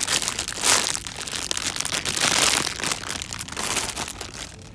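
Clear plastic wrapping crinkling and rustling right against the microphone, a loud dense crackle that starts suddenly and stops near the end.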